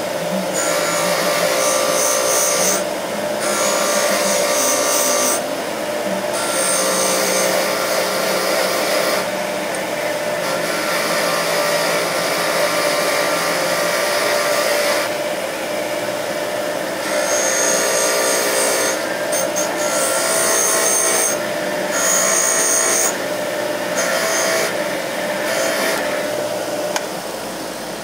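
Bench grinder running a brass wire wheel against an aluminum piston to clean carbon and crud from its ring grooves. The motor's steady hum sits under a scratchy brushing hiss that breaks off briefly several times and falls away near the end.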